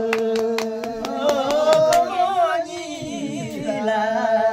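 A man's voice singing a Karmarong song unaccompanied, holding long notes, with hand-clapping in a steady beat of about four claps a second that stops about halfway through while the singing goes on.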